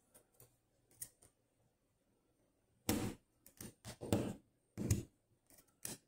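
Small metal lock parts and tools being handled as a Dom Plura lock cylinder is taken apart by hand: faint clicks at first, then several short, louder scraping clatters in the second half.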